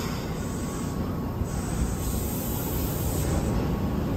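Keihan 600-series train pulling away from the platform. Its motors and wheels give a low rumble that grows steadily louder as it gathers speed.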